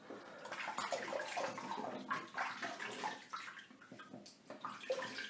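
Water splashing as a face is rinsed with handfuls of water over a sink, washing off shaving lather after the first razor pass. The splashing is busiest for the first few seconds, then comes in scattered splashes.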